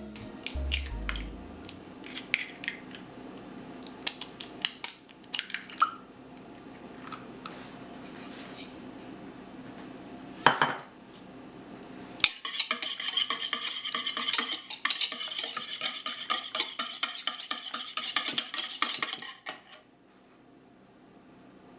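Utensils clinking and knocking against dishes, then about seven seconds of fast, steady stirring with a metal utensil in a bowl that stops abruptly near the end.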